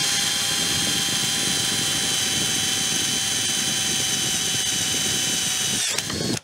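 Total cordless drill running at steady high speed as a twist bit bores through a metal plate, its motor whine holding one pitch and sagging slightly under the load. It stops about six seconds in.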